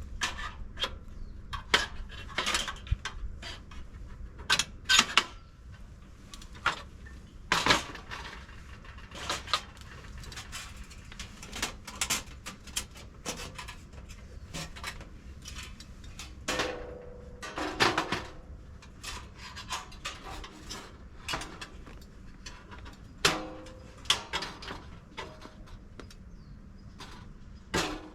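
Irregular clanks, clicks and knocks of metal camping gear being handled and set down, a few with a short metallic ring.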